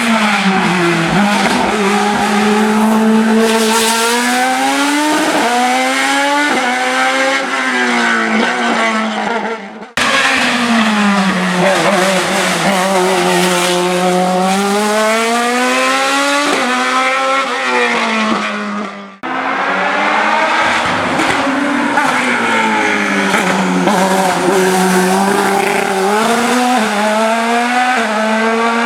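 Hillclimb race car engines at full effort, in three separate passes. Each engine drops in pitch as the car slows, then revs up through a run of quick upshifts, the pitch climbing and snapping back down at each gear change.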